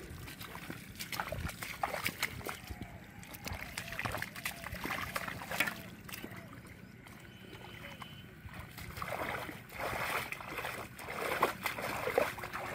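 Squelching and splashing of bare feet and hands in shallow muddy water: wading steps through the mud, with the hands churning and splashing the mud and water more busily in the second half.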